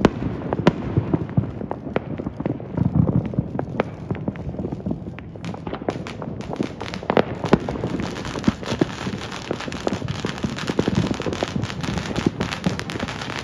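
Many fireworks and firecrackers going off at once: a dense, unbroken patter of pops and bangs, with a few louder cracks standing out.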